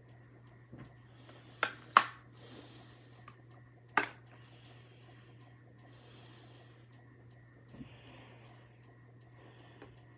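A person breathing through the nose close to the microphone, a soft puff every couple of seconds, over a steady low hum. Three sharp clicks sound about one and a half, two and four seconds in.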